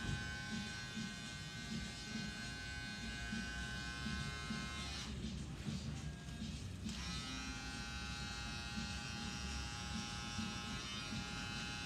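Barber's electric hair clippers buzzing steadily with a high motor whine. The buzz stops for about two seconds midway, then starts again.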